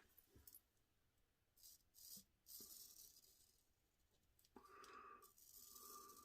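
Faint scraping of a straight razor cutting through lathered stubble: a few short rasping strokes, then a longer ringing scrape from about four and a half seconds in.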